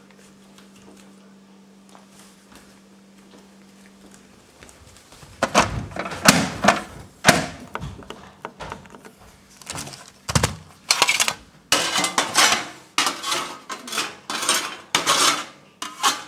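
Faint steady hum, then from about five seconds in a long run of sharp, irregular clattering of hard household objects knocking together.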